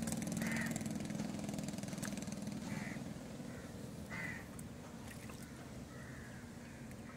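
An engine runs with a steady low hum that slowly fades, while a bird gives three short calls.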